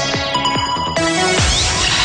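Electronic dance music backing track: a kick drum beats about four times a second under held synth notes. About a second and a half in, a heavy hit gives way to a wash of noise as the beat drops out.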